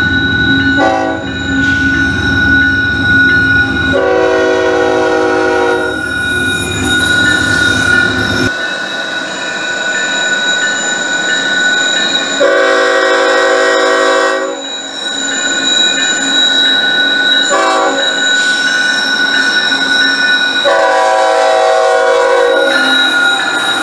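A GE ES44AC diesel locomotive's air horn sounds a series of long and short blasts, warning for a road crossing. For the first several seconds it is close by, the locomotive and train rumbling heavily as they pass; after that it is heard farther off. A steady high-pitched ringing tone runs underneath.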